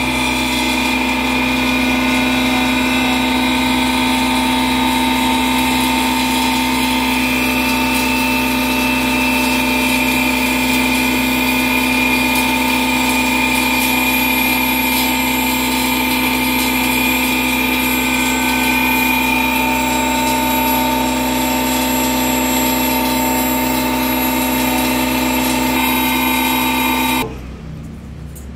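Electric woodworking power tool running steadily at full speed, one even motor note with several overtones, then switched off about a second before the end.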